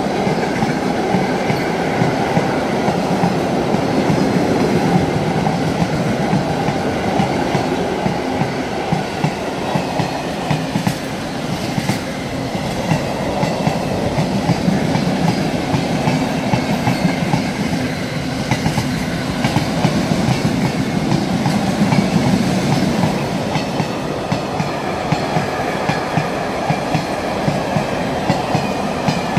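Long freight train of car-carrier and flat wagons running through at speed, a continuous rumble with rapid wheel clicks over the rail joints and a faint high ringing from the wheels.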